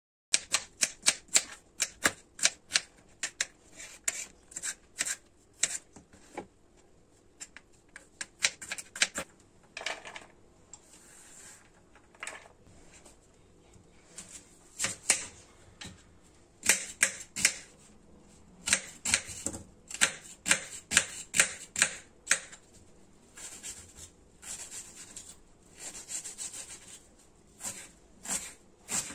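Kitchen knife chopping on a bamboo cutting board: runs of sharp knocks, about three a second at first, as a carrot is diced, then slicing and chopping an onion, with pauses between the runs.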